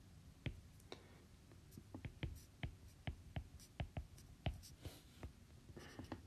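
Faint, uneven series of short sharp clicks and taps from a stylus on a tablet surface while writing by hand.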